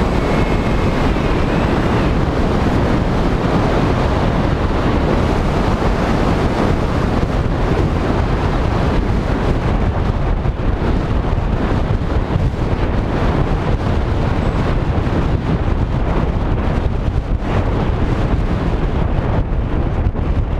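Loud, steady wind rush over the onboard camera microphone of a Skywalker RC plane in flight, low and buffeting, as the plane comes down low over the fields.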